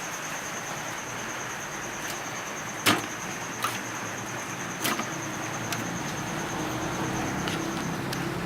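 A few sharp clicks and knocks, the loudest about three seconds in, from desktop computer parts being handled during disassembly, over a steady hiss with a faint high whine.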